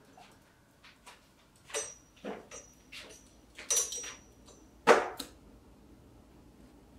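A string of about ten short, sharp sounds spread over several seconds, the loudest about five seconds in, with a thin high squeak running under some of them.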